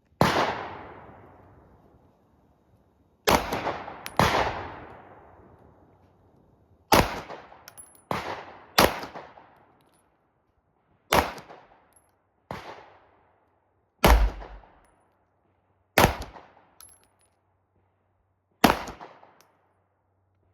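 9mm pistol shots fired at a slow, deliberate pace: about eleven over twenty seconds, one to three seconds apart, each trailing off in a long echo.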